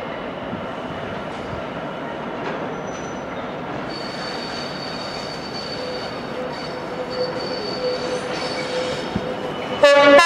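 A Class 66 diesel freight locomotive approaching on curving track, its wheels squealing in high steady tones from about four seconds in. Just before the end it sounds its horn, suddenly and loudly.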